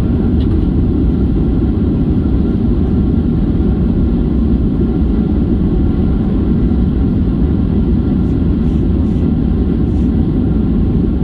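Steady low cabin rumble of a Boeing 737-800 rolling along the ground after landing, engines running at low power. A few faint clicks come near the end.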